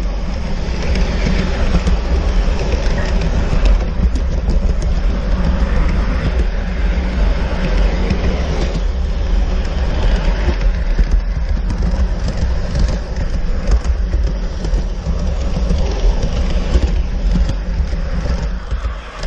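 G-scale model train coaches rolling along the track, heard from a camera riding on one of the cars: a steady, loud rumble with constant fine clicking and rattling from the wheels on the rails.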